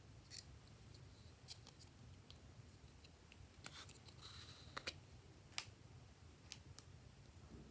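Small plastic paint jar handled and its screw lid twisted off: faint scattered clicks, with a short plastic scrape as the lid comes off about four seconds in.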